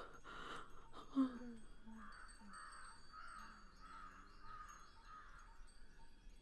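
A crow cawing faintly in a quick run of about eight caws. A brief low falling sound comes about a second in.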